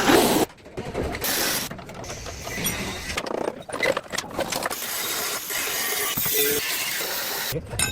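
Car body-repair workshop noise: mechanical clanks and clicks alongside a steady, hissing power-tool noise, broken off abruptly every second or so as if cut together.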